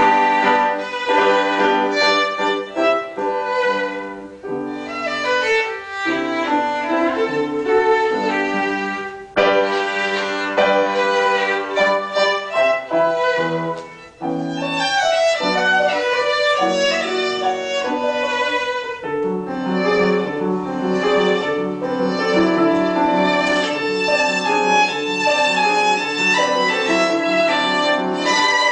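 Solo violin playing a classical melody with piano accompaniment, performed live.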